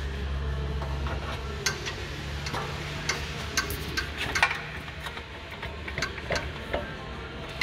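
Scattered light metal clicks and knocks from a CV drive axle and a long pry bar being worked into place under the car, the loudest about halfway through. A low steady hum sits underneath and fades out about two thirds of the way in.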